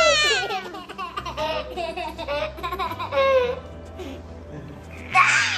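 A toddler laughing in high-pitched peals, with a louder burst of laughter about five seconds in, over background music.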